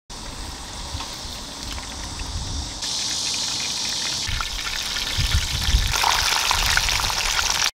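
A whole flour-coated chicken deep-frying in hot oil in a cast-iron pot-lid griddle (sot-ttukkeong): steady sizzling with fine crackles. It gets louder about three seconds in.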